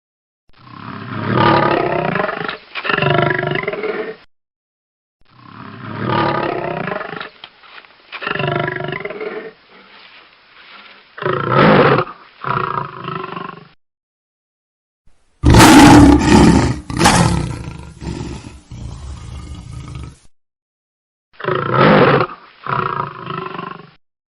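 Lion roaring in several bouts of deep, drawn-out roars separated by short silences. The loudest bout comes about two-thirds of the way through.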